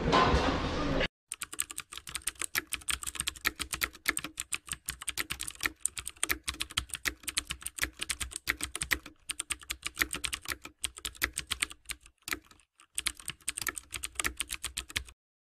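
Computer-keyboard typing sound effect: fast, dense key clicks with a few short pauses, stopping shortly before the end. It follows about a second of voices that cut off abruptly.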